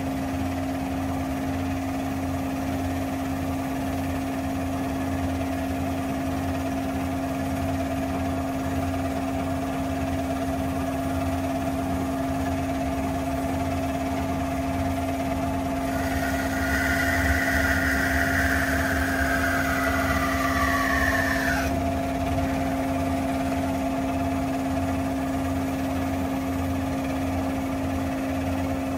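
Hyd-Mech S-20A Series II horizontal bandsaw running steadily in automatic mode, its hydraulic pump and blade drive humming. About halfway through, a louder, higher whine that falls in pitch, with a hiss, joins for some six seconds and then cuts off suddenly.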